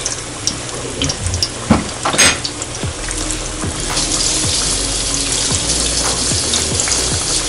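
Battered catfish pieces deep-frying in a pan of hot oil: a steady sizzling hiss with crackles and a few sharp pops. The sizzle grows louder about four seconds in as more pieces are dropped into the oil.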